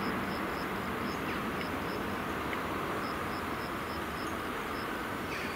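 FS E656 electric locomotive approaching slowly, a steady running noise from the locomotive and its train. Over it, an insect chirps in a regular rhythm of about three high chirps a second.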